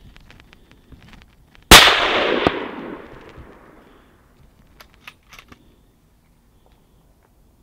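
A single hunting rifle shot about two seconds in, echoing for a couple of seconds as it fades. A few faint clicks follow a few seconds later.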